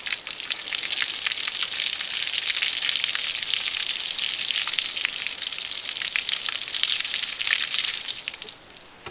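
Water pouring out of a shot plastic gallon jug and splashing onto a board on top of a barrel, with small crackles through the stream; the pouring stops near the end.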